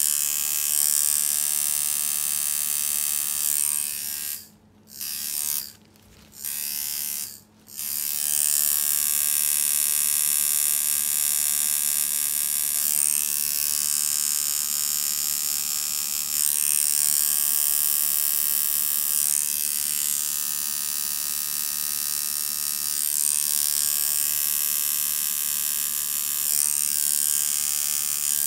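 Custom twin-coil tattoo machine buzzing steadily as it runs, stopping three times, briefly, between about four and eight seconds in.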